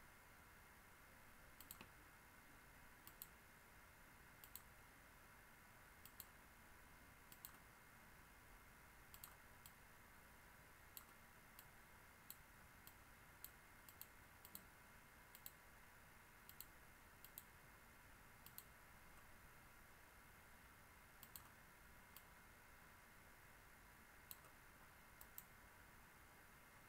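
Computer mouse clicks: about twenty short, sharp clicks at irregular intervals, some in quick pairs, over faint steady background hiss.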